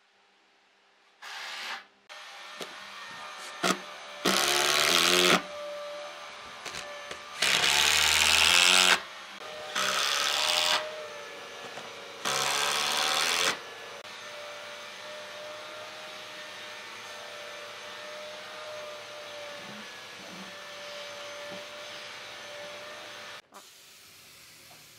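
Power drill driving long wood screws into pine in four bursts of about a second each, then a steadier quieter hum with a held tone that cuts off near the end.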